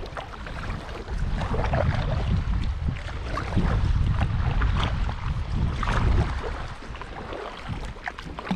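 Small ripples of water lapping and splashing against a kayak's hull as it moves across calm lake water, with wind rumbling on the microphone.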